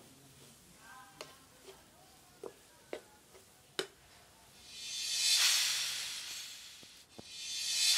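A wooden spatula clicks and knocks against a non-stick frying pan as scrambled eggs with tomato are stirred. Halfway through a loud hiss of the food sizzling swells up and fades, and near the end a second swell begins.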